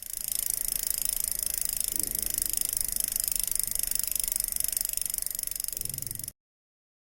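A steady, fast, even mechanical rattle, mostly high and hiss-like, lasting about six seconds and then cutting off suddenly.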